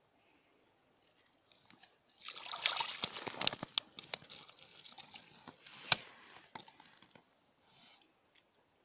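Wet crunching and sloshing of ice chips and slush with many sharp clicks and slaps, from a fish being handled on the ice beside the fishing hole. It starts about two seconds in and dies down to faint crackles near the end.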